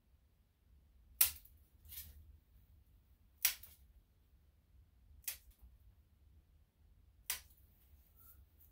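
Plier-style dog nail clippers snapping through a Shih-Tzu's toenails: five sharp clips a second or two apart.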